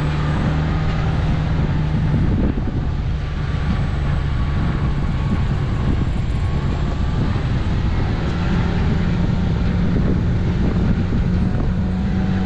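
A Toyota Prado 4WD heard from inside the cab, its engine running under load on a dirt track over steady road rumble. The engine note drops about two seconds in and climbs again over the last few seconds.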